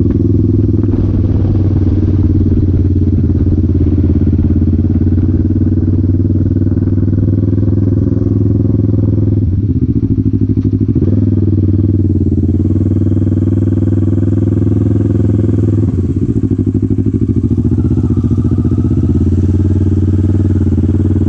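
Kawasaki Ninja 650's parallel-twin engine running steadily under way. The engine note dips and picks up again twice, about ten seconds in and again around sixteen seconds.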